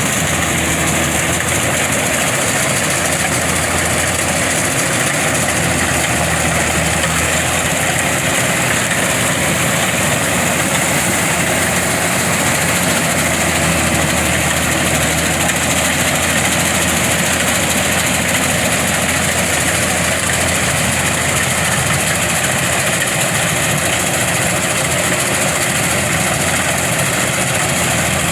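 Kubota DC-105X combine harvester's diesel engine running steadily while the machine sits bogged in soft, waterlogged paddy mud.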